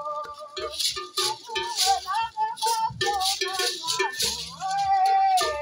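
Group of women singing a gliding melody in unison, with gourd rattles shaken in a steady beat about twice a second.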